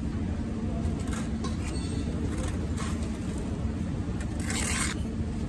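A steel trowel scraping mortar against brick in several short strokes, the longest about four and a half seconds in, over a steady low machine hum.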